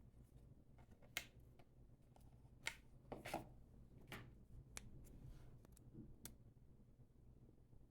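Faint handling noise from a phone's retail box being turned and picked at by hand: a few scattered taps, clicks and short scrapes over a low steady hum.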